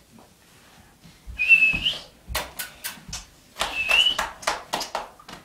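A person whistling twice to call a dog, each whistle a short high single note, the second rising slightly at its end. Quick sharp clicks come between and after them.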